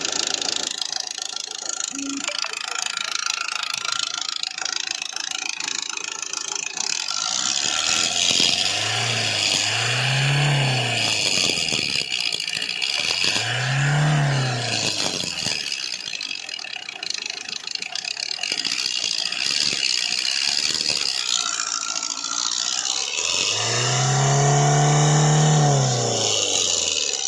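Hyundai Verna CRDi VGT common-rail diesel engine running with a steady metallic rattle, on an engine with about 200,000 km. It is revved briefly a few times, with a longer rev near the end, the pitch rising and falling each time.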